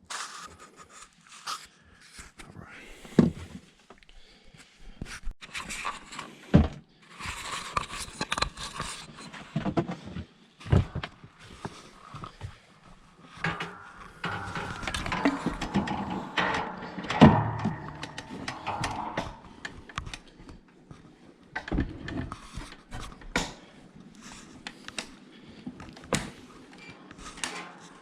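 Scattered knocks, thumps and rustling of things being handled in a small room, with a few sharper knocks standing out.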